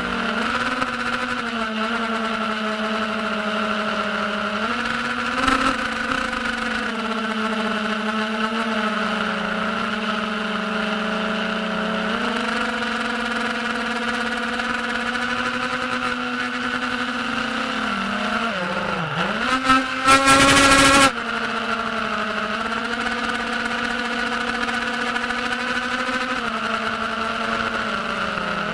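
Diatone Tyrant S FPV quadcopter's brushless motors and propellers whining steadily, the pitch shifting up and down with the throttle. About nineteen seconds in the pitch drops sharply, then a short, much louder rush follows before the steady whine returns.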